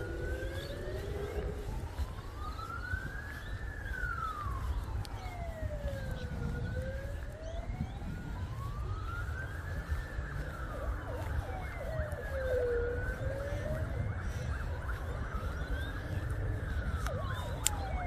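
Emergency vehicle siren wailing, its pitch rising and falling slowly, about one full rise and fall every six seconds, over a low steady rumble.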